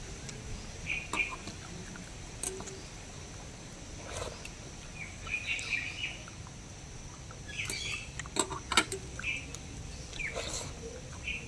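Short bird chirps repeating every second or two, mixed with wet mouth sounds and a few sharp clicks from eating soaked rice (panta bhat) by hand. The loudest are two clicks close together about three quarters of the way through.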